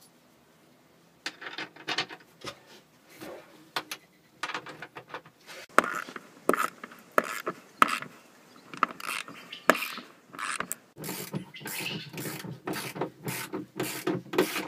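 Ratchet wrench clicking in quick runs of strokes, tightening the sponson mounting bolts; it starts about a second in.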